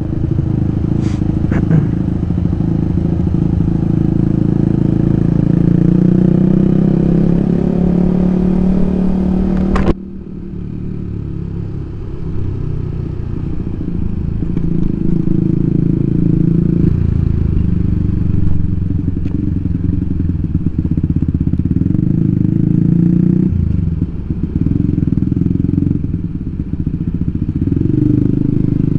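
Yamaha automatic scooter's engine running while riding, its pitch rising gradually over the first several seconds, with wind hiss over it. About ten seconds in the hiss cuts off suddenly and the engine carries on steadily.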